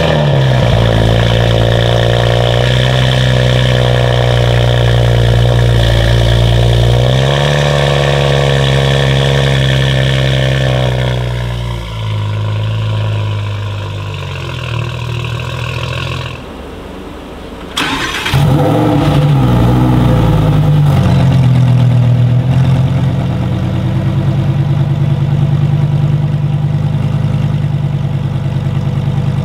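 Modified Toyota GR Supra MK5 with an aftermarket titanium exhaust at a high idle just after start-up, rising briefly, then dropping to a lower idle. After a cut, a Lamborghini Huracán EVO V10 starts about 18 s in with a short flare of revs and settles into a steady idle.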